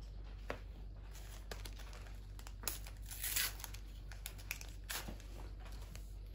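Panini Adrenalyn XL trading cards and their packet being handled: soft taps and slides of cards, and a longer crinkling, tearing rustle about three seconds in.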